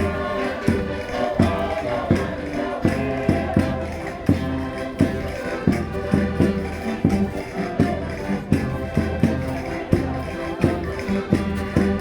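Portuguese concertinas playing a Minho folk dance tune over a steady, driving beat.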